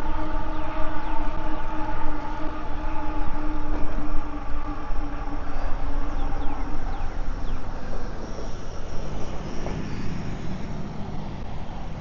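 Train horn sounding one long, steady chord that fades out about seven seconds in, over wind rushing on the microphone.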